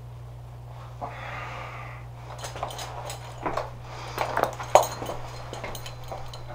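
A man's forceful breath through the nose about a second in, then a run of sharp knocks and rustles from his abrupt movement, loudest near the middle, over a steady low hum.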